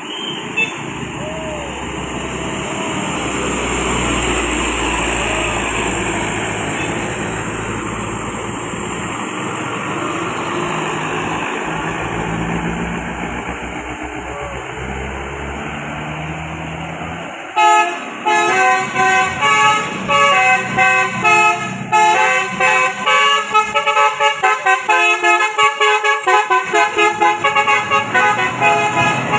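Vehicle engine and road noise that swells and fades, then, a little past halfway, a bus's multi-trumpet telolet horn playing a quick melody of short, pitched notes over and over until the end.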